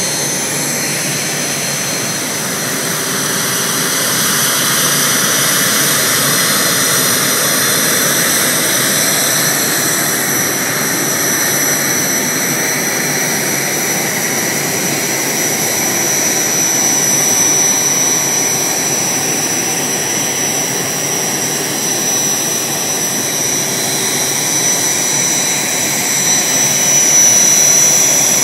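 BAE Hawk jet trainer's turbofan engine running at taxi power: a steady rushing jet noise with a high, constant whine, growing a little louder near the end as the jet comes closer.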